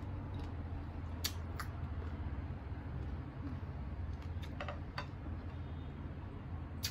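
Chewing crisp, unripe green mango with the mouth closed, with a few sharp crunchy clicks scattered through, over a steady low hum.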